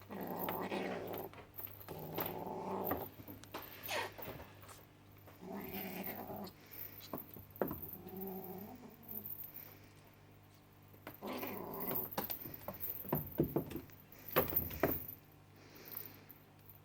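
Cornish Rex kittens mewing, about five separate cries spread through the stretch, with a few bumps and knocks about two-thirds of the way through.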